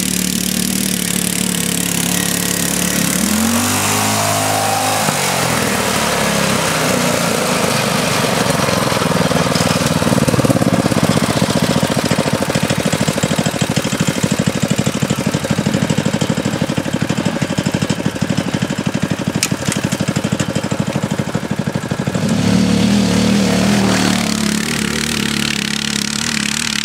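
Riding lawn mower engines running hard as the mowers race up a steep grass slope. The engine pitch swoops down and back up about four seconds in, and the note changes again near the end.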